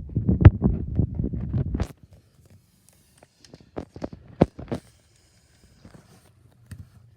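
Rubbing, knocking handling noise for about two seconds, then a series of separate sharp plastic clicks and taps as a fuse cover is opened to get at the 3 amp fuse inside.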